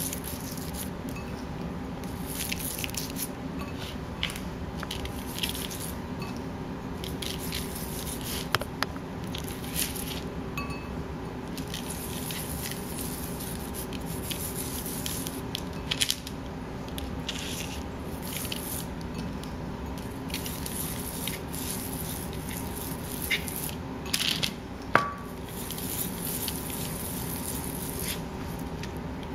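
Hands rubbing brown sugar onto the surface of a ham: soft, gritty rubbing and scraping that comes and goes, with a few small clicks, over a steady low hum.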